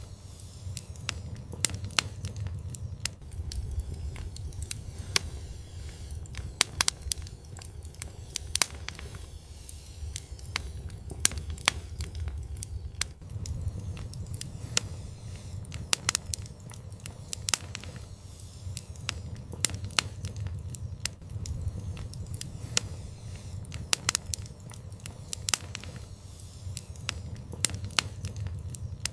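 Fire in an outdoor fireplace crackling, with irregular sharp pops and snaps over a steady low rumble of the flames.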